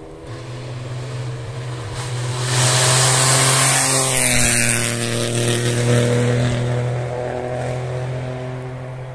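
A rally car passing at speed: its engine note builds to its loudest about three seconds in, with a rush of noise over the top, then fades away as it goes past.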